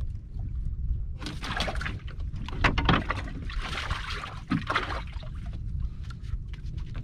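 Water sloshing and splashing at a small outrigger boat in several noisy bursts, the loudest about three seconds in, over a steady low rumble.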